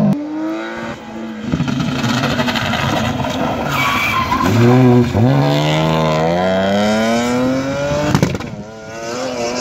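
Rally car engine at high revs accelerating hard, its pitch climbing steeply, dropping sharply at a gear change about five seconds in and then climbing again. A sharp crack comes about eight seconds in, followed by a brief dip. Tyre noise runs under the engine.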